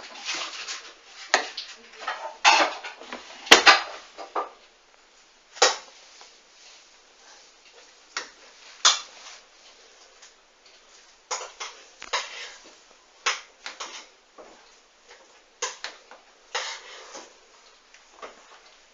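Hoover washing machine drum turning with a duvet at the start of a 40 °C wash, giving irregular clicks and clatters, busiest and loudest in the first few seconds and then in sparser groups.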